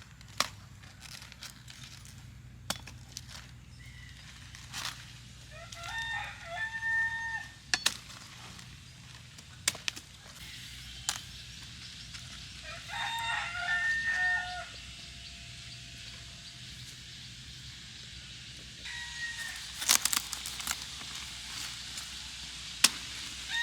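A rooster crowing twice, each crow a run of pitched notes about a second and a half long, several seconds apart. Scattered sharp clicks and knocks, and a louder rustling near the end, come from work going on close by.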